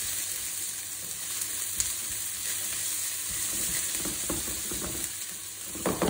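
Onions, mixed vegetables and curry leaves sizzling in oil in a non-stick wok while being stirred with a silicone spatula: a steady frying hiss, with a few soft strokes of the spatula from about four seconds in.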